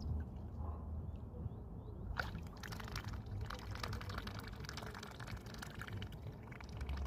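A swan sniffling: a run of short, rapid snuffles that starts about two seconds in, over a steady low rumble.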